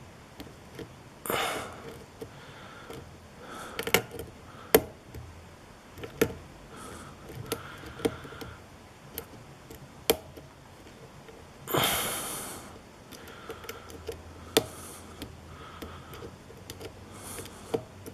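Lock pick and tension wrench working the pins of a spool-pinned TESA lock cylinder: irregular light metallic clicks as the pins are lifted and set. Two longer scraping rasps come about a second in and about twelve seconds in.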